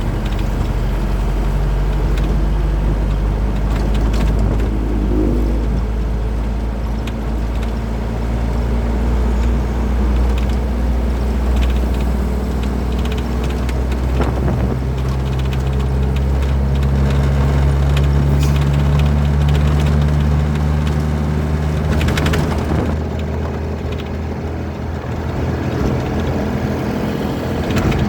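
Truck diesel engine running while driving, over steady road noise. Its note climbs gently through the middle and changes suddenly about three-quarters of the way through, with a few brief knocks along the way.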